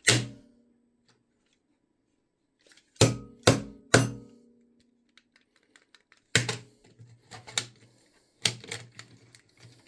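Sharp plastic clicks and knocks from handling a battered smoke alarm: three quick knocks about three seconds in, then scattered clusters of clicks. The alarm itself does not sound.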